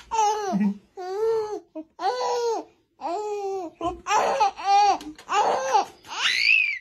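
A baby laughing and squealing in a string of about eight short, high-pitched, sing-song bursts, ending in a rising squeal.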